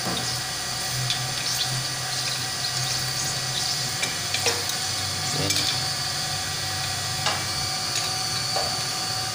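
Steady hiss of water under pressure in a newly installed water pump's pipework, turned on to check the connections for leaks. A few short metallic clicks come through it as an adjustable wrench works a pipe fitting.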